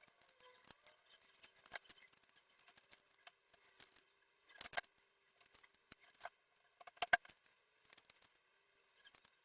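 Scattered light clicks and taps of small objects being handled, with a louder cluster about five seconds in and another around seven seconds, over a faint steady hum.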